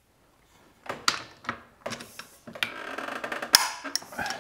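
Torque wrench and socket on a small-engine flywheel nut: a few metal clicks as the socket goes on, then a rapid run of ratchet clicks as the nut is tightened, with one sharp louder click about three and a half seconds in.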